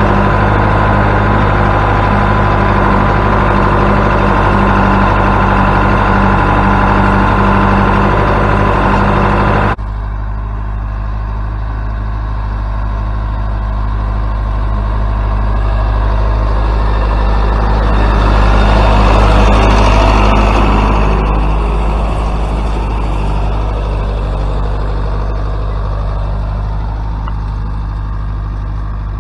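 Tractor diesel engine running steadily while pulling a six-furrow disc plough. About ten seconds in the sound cuts abruptly to a quieter, more distant engine drone, which swells louder around twenty seconds in as the tractor draws closer, then fades a little.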